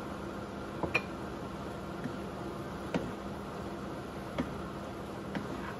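A few light, scattered clicks and knocks of a wooden spatula against a frying pan as greens are stirred, over a steady low hum.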